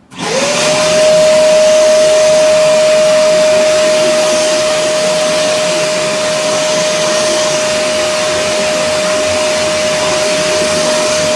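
A 1200 W wet/dry/blow vacuum cleaner's motor switched on and running, likely in blower mode. It spins up within the first half-second to a steady high whine over loud rushing air.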